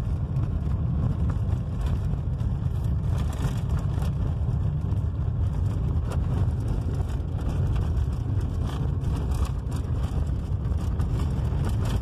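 Cabin noise of a Volkswagen Gol driving on a dirt road: a steady low rumble of engine and tyres, with frequent small knocks and rattles over the rough surface.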